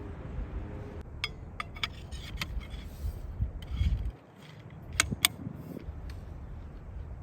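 Sharp clicks and clinks, like hard objects or metal gear being handled: a quick run of them about a second in and a louder cluster near five seconds, over a low rumble.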